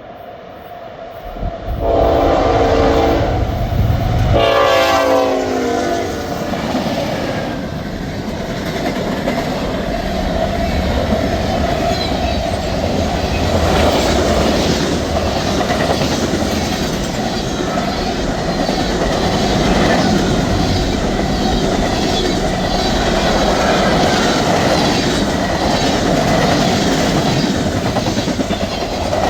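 Locomotive horn sounding two blasts, one about two seconds in and one about four and a half seconds in, then a train rolling past with a steady rumble and the clickety-clack of its wheels over the rail joints.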